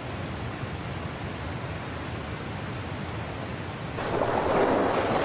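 Rushing whitewater of river rapids, a steady noise that turns suddenly louder and fuller about four seconds in.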